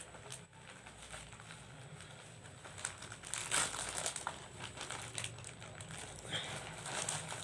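Packaging crinkling and rustling as it is handled and unwrapped, in irregular bursts that grow busier after about three seconds.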